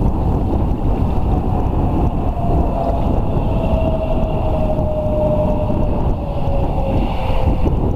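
Strong wind buffeting the microphone in a steady low rumble, with a faint thin drone that slowly falls in pitch over the middle and later part.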